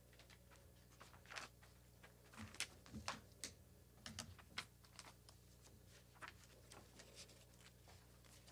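Near silence with a low steady hum and scattered faint clicks and taps, most of them between about one and five seconds in.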